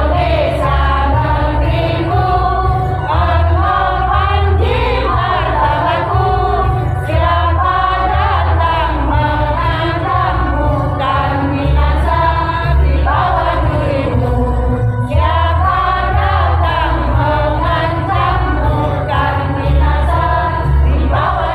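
Women's choir singing together, with a steady low bass running underneath.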